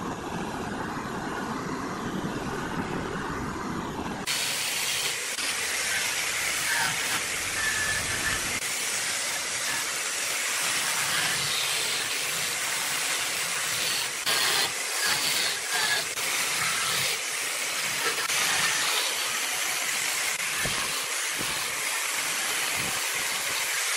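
A gas torch flame blowing with a low rumble against the spinning wood, cut off about four seconds in by the harsh hiss of an angle grinder's sanding drum sanding the flared rim of a jackfruit-wood vase turning on the lathe.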